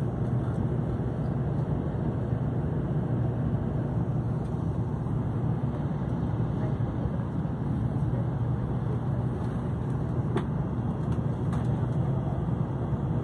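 Steady low rumble and running noise of a Shinkansen bullet train travelling at speed, heard from inside the passenger cabin.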